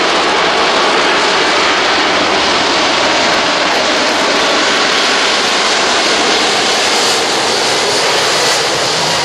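Boeing 777-300 jet engines at high power, a loud steady rushing roar of a takeoff. The roar eases slightly near the end.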